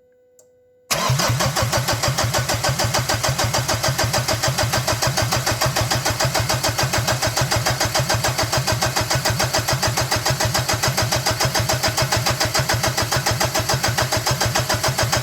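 Mitsubishi Pajero engine turned over on the starter motor, starting about a second in and going on with a steady, rapid, even pulse. It is being cranked to prime the freshly filled oil system until oil runs from the disconnected turbo feed.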